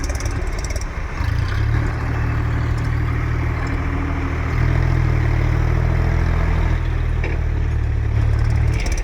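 Heavy diesel machine engine running steadily, picking up and getting louder about four and a half seconds in, then easing off at the very end.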